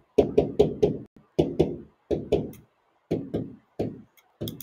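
Pen knocking against a writing board as numbers and symbols are written: a series of short knocks in small groups of two to four, with brief pauses between the groups.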